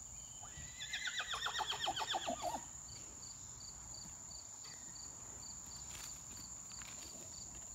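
A horse whinnies once, a call about two seconds long that starts high and falls in pitch with a rapid quavering shake. Afterwards faint regular chirps, about two a second, and a steady high whine carry on underneath.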